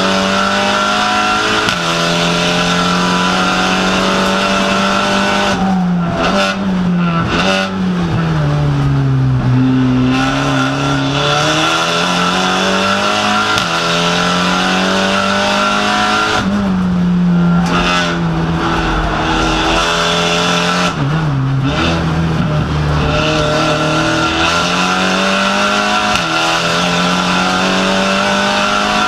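SEAT Supercup race car's engine heard from inside the cockpit, running hard at high revs on a flying lap. Twice, about a quarter and two-thirds of the way through, the note eases and drops in pitch as the driver lifts and brakes for a corner, then climbs back up under acceleration.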